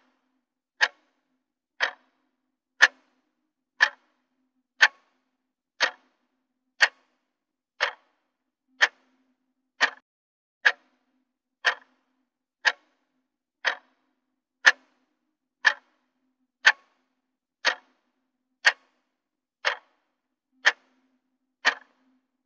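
Clock-tick sound effect marking a countdown timer: one short, sharp tick each second, steady throughout.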